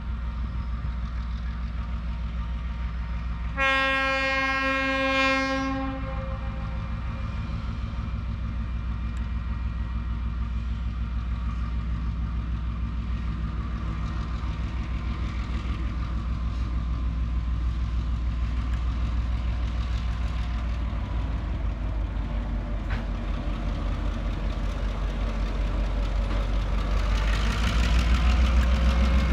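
TasRail DQ-class diesel locomotive 2009 approaching with a cement train, its engine running with a steady low drone that grows louder as it nears. A few seconds in it sounds its horn once, a single chord held for about two seconds. Near the end the engine and wheels on the rails are loudest as the locomotive comes close.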